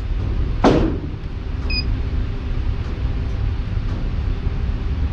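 A single sharp crack about 0.7 s in, over a steady low rumble.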